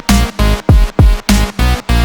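Electronic dance music with a heavy, dubstep-style beat: loud bass hits about three times a second, each sliding down in pitch.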